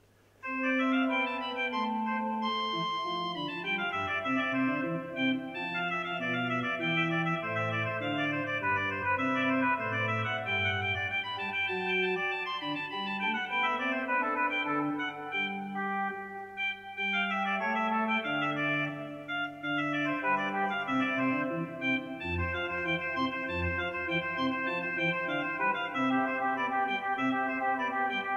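Johannus three-manual digital organ playing a many-voiced piece, starting about half a second in, picked up by a camcorder's built-in microphones. A few deep pedal notes sound about three quarters of the way through, over a faint steady low hum.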